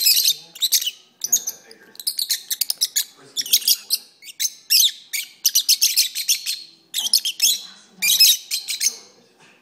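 A pair of rosy-faced (peach-faced) lovebirds singing and chattering: rapid high-pitched chirps, squeaks and trills in bouts of about a second, with short pauses between them.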